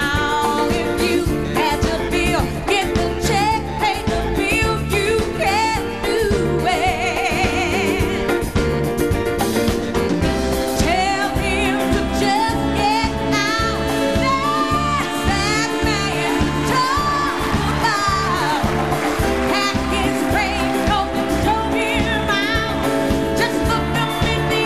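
Samba dance music with a lead singer over a steady, driving beat.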